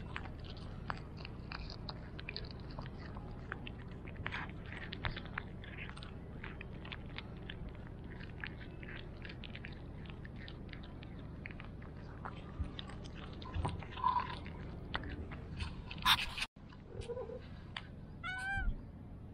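Cat chewing raw chicken meat close to the microphone: a dense, irregular run of small wet clicks and crunches. Near the end, one short call that rises in pitch.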